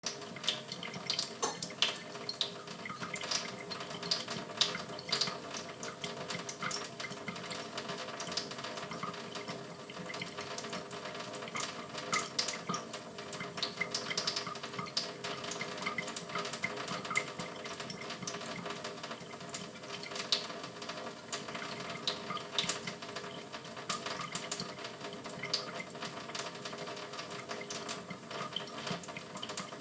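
Tap water running steadily into a sink, with frequent small splashes and flicks of water as a canary bathes in it.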